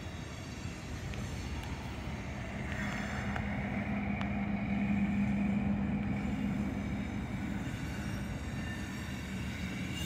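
EMD GP38 diesel-electric locomotive's two-stroke diesel engine running with a steady low drone while hauling loaded hopper cars. It grows louder toward the middle as the locomotive approaches.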